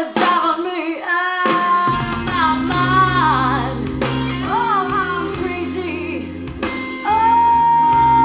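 A song with a high female voice singing a wavering melody over a bass line that comes in about two seconds in, closing on one long held note near the end.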